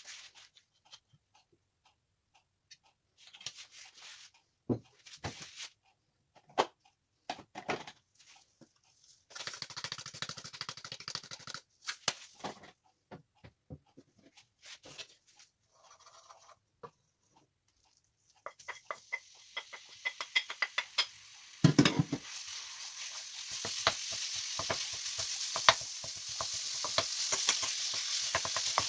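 Scattered knocks and clicks of handling a non-stick wok, then minced meat frying in hot oil. The sizzle starts about two-thirds of the way through, with a heavy thud soon after, and grows steadily louder while a wooden spoon stirs and scrapes the meat in the pan.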